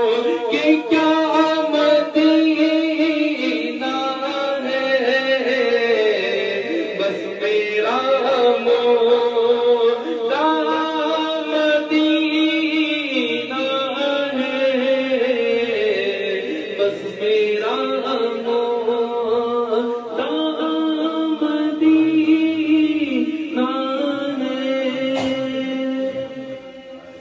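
A male voice singing an Urdu naat, a devotional poem in praise of the Prophet, into a microphone, with long held notes; the sound fades out near the end.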